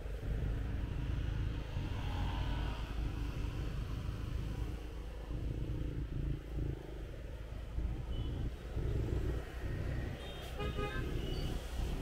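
Street traffic heard from a moving motorbike: a steady low rumble of engines and road, with a short vehicle horn toot near the end.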